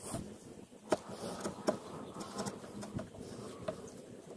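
Chisel paring a wooden joint: a few light clicks and scrapes of the steel edge in the wood, the sharpest tick about a second in.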